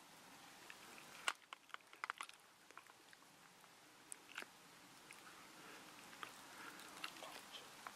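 Near silence, with scattered faint ticks and small crackles, clustered between about one and two seconds in and a few more later.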